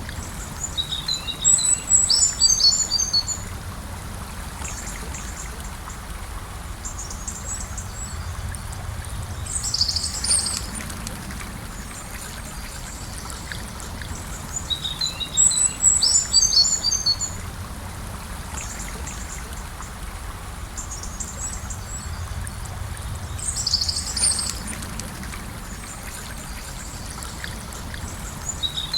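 Gentle river flowing steadily, with songbirds singing over it. A quick run of high chirping notes comes twice, each lasting about two seconds, and a shorter high phrase also comes twice in between.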